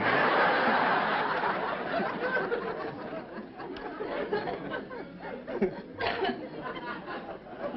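Studio audience laughing at a joke, loudest at the start and dying away over several seconds.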